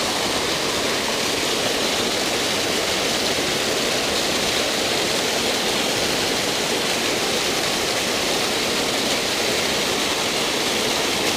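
Steady rush of water flowing over a creek spillway, an even, unbroken noise.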